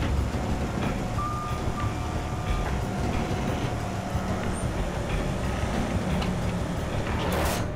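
Heavy rescue tow truck's diesel engine running steadily, with a thin high tone lasting about a second and a half and a short burst of air hiss near the end.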